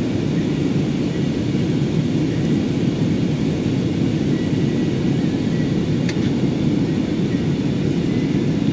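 Passenger jet cabin noise in flight: a steady low drone of engines and airflow with a faint high whine on top.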